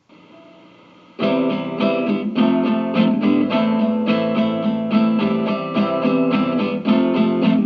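Guitar instrumental intro. After about a second of faint low hum, the guitar comes in suddenly with a steady, evenly spaced strummed and picked rhythm.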